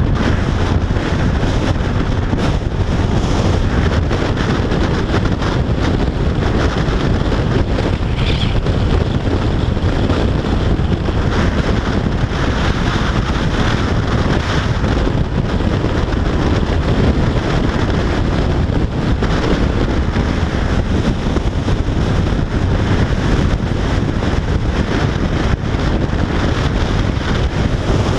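Yamaha FJR1300AE motorcycle cruising at motorway speed: steady wind rush on the microphone, with road and engine noise beneath it.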